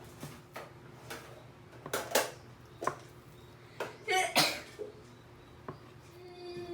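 Scattered clicks and knocks of kitchen utensils and dishes being handled, with a longer, louder clatter about four seconds in.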